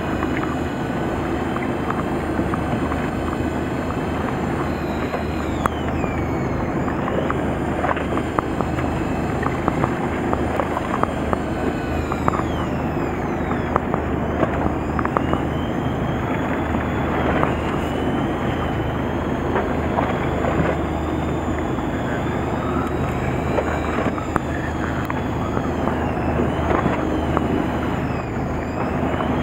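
Steady wind and water noise on a small fishing boat at sea, over a low steady hum, with frequent small knocks and taps throughout.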